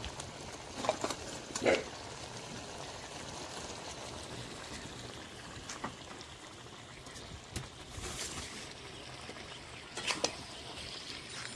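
Metal spatula stirring fish head and cabbage in a metal karai: scraping with a handful of sharp clinks and knocks against the pan, over a steady background hiss.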